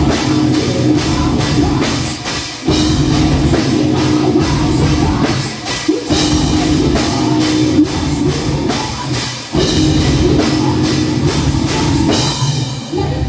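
Heavy metal band playing live: distorted guitar and drum kit, with the music breaking off briefly a few times.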